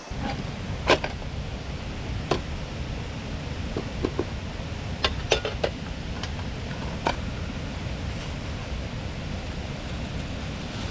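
Steady low rushing noise, as of running stream water or wind on the microphone, with a handful of light clicks and knocks scattered through the first seven seconds or so.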